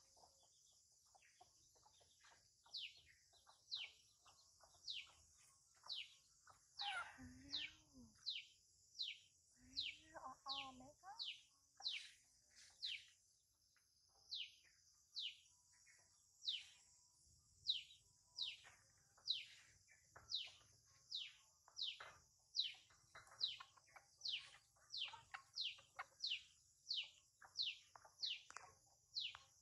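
A bird calling over and over with short whistles that fall in pitch, about two a second, over a steady high insect hiss. Twice, about a third of the way in, a short lower-pitched call cuts in.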